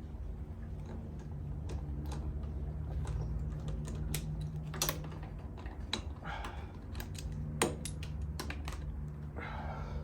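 Scattered light clicks and taps of metal parts and hand tools as motorcycle handlebars are positioned and their clamp hardware handled, over a steady low hum.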